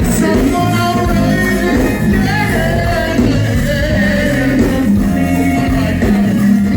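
Live go-go band playing loudly: a steady bass line and percussion under singing.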